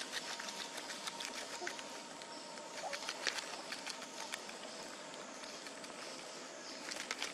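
Dry leaf litter rustling and crackling as macaques move and handle it, with many scattered small clicks over a steady outdoor hiss.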